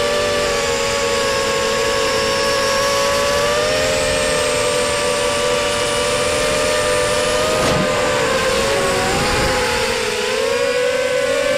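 Racing quadcopter's four T-Motor 1806 2300kv brushless motors and 5x4 props whining during fast, low flight, several close pitches rising and falling together with the throttle over a steady rush of wind and prop wash. The pitch dips about eight and ten seconds in before climbing again.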